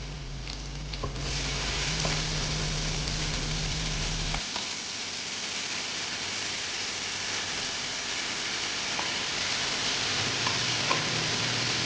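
Food sizzling in hot oil in a pan: a steady hiss that gets louder about a second in, with occasional small crackles. A low steady hum underneath stops about four seconds in.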